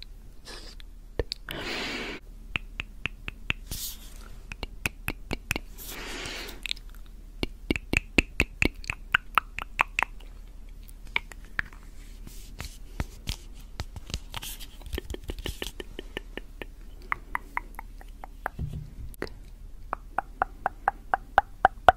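Tongue clicking and wet mouth sounds: sharp, separate clicks, often in quick runs of several a second. There are two short hisses about two and six seconds in.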